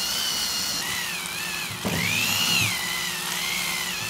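Corded Lidl electric epilator running against the skin of a leg: a high motor whine that wavers up and down in pitch, over a low hum, with one light knock about two seconds in.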